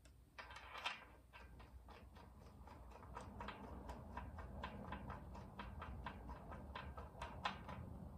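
Light metallic clicking, about three evenly spaced clicks a second, from hand work at the camshaft sprocket of a Porsche 911 flat-six while the timing dowel pin is being fitted.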